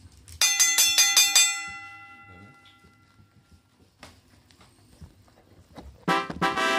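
A quick run of bright bell chimes, six or seven strikes within about a second, each ringing on and dying away: an edited-in chime effect. Near the end a steady buzzing tone sounds for about a second.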